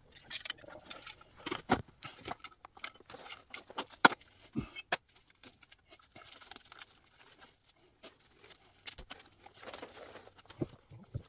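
Irregular clicks, taps and rustling of hands working with tools and materials, with a sharp click about four seconds in.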